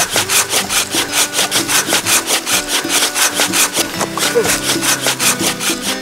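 Hand pruning saw cutting back and forth through a woody shrub stem near the ground, in quick, even strokes of about five a second.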